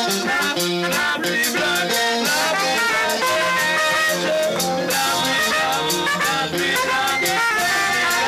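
Live gospel band music with a drum kit and guitar playing a steady beat.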